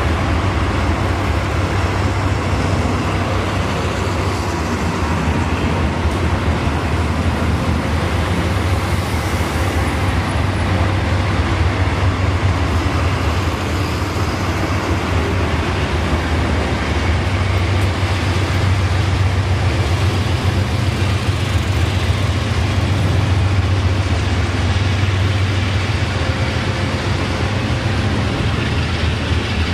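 Diesel locomotives of a cement freight train running as it crosses a stone viaduct, mixed with steady street traffic and a lorry passing below. Steady low drone, with no sharp events.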